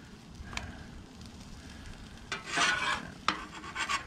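A metal spatula scraping across the steel top of a Blackstone flat-top griddle while flour tortillas are turned, a scrape about two and a half seconds in, with a few sharp taps of the spatula on the griddle before and after it.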